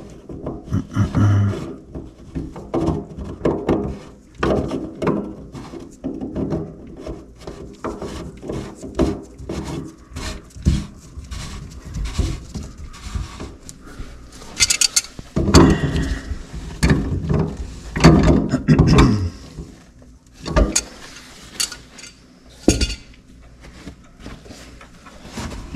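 Irregular clatter, knocks and clicks of sink drain pipe fittings and tools being handled while the drain is put back together and a threaded nut is worked on. A run of louder knocks comes a little past halfway through.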